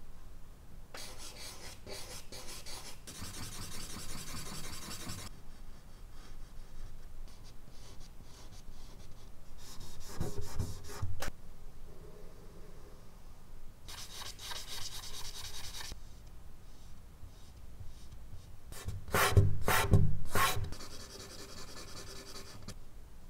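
Charcoal scratching and rubbing on medium-surface drawing paper, in spells of quick strokes with pauses between them. A few loud knocks and thuds come close together near the end.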